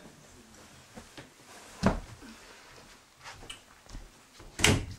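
Knocking on a wooden bedroom door: a single knock about two seconds in, then a loud knock near the end, with faint taps and steps in between.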